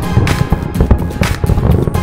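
Loud music with a steady beat, about two strong hits a second.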